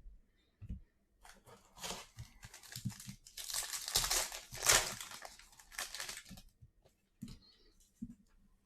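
Wrapper of a Panini Legacy Football hobby pack being torn open and crinkled, a run of crackling bursts over several seconds, loudest around the middle. A few soft taps follow near the end.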